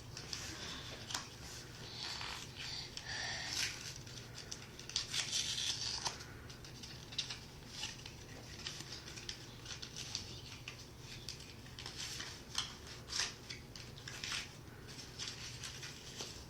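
Packaging for a Pokémon card pack being opened by hand: irregular snips, crinkles and tearing of plastic and card, with the busiest stretch about five seconds in.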